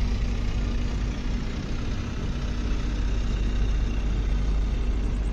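Steady running rumble of the Humsafar Express, heard from on board as the train moves along the track.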